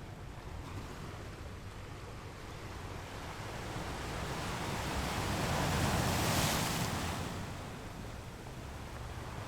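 Ocean waves breaking on rocks: a steady wash of surf with a low rumble that swells into one louder crash about six seconds in, then eases back.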